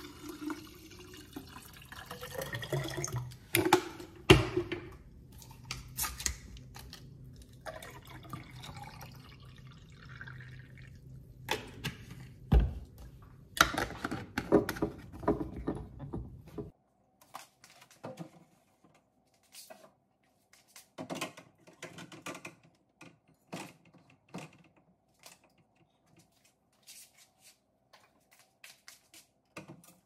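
Kitchen handling sounds while filling and organizing a refrigerator: a run of knocks and clicks as containers and items are moved and set down, with liquid-like sounds in the first half. About 17 seconds in the sound changes abruptly to sparse, lighter clicks over a faint steady hum.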